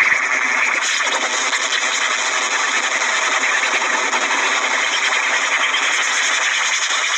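Loud, steady hissing noise like static, thin in the bass, with no tune, beat or voice.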